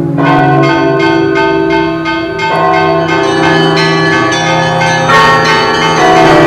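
Church bells ringing a peal: several bells of different pitch struck one after another, about three strikes a second, each note ringing on under the next.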